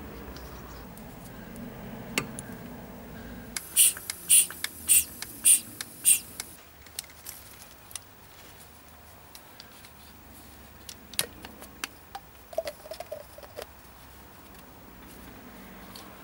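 Sharp clicks and light squeaks from hands working small brake-bleeding tools and fittings: a run of about six loud clicks half a second apart a few seconds in, then scattered softer clicks and a brief squeak.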